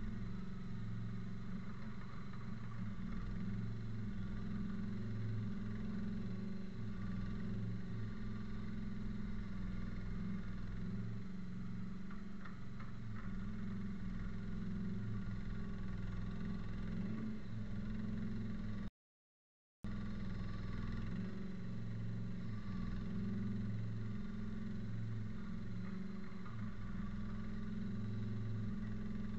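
Avant 218 compact loader's engine running steadily as the machine works soil, with a low, even hum; the sound cuts out completely for under a second about two-thirds of the way through.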